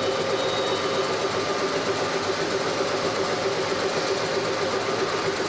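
CNC turning lathe running steadily, a constant machine hum with a steady mid-pitched whine.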